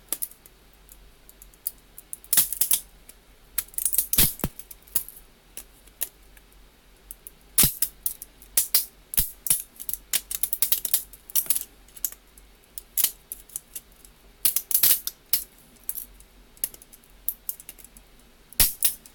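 3D-printed support material being pulled and snapped off a printed part: irregular sharp plastic clicks and cracks in quick clusters, with short pauses between.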